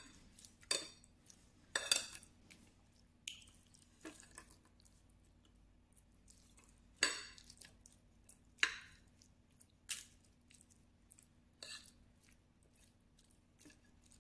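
A metal spoon scraping and clinking on a ceramic plate while mixing a saucy salad of bean sprouts, tofu and tempeh, with soft wet squishes between strokes. There are about ten separate strokes, and one longer scrape comes about seven seconds in.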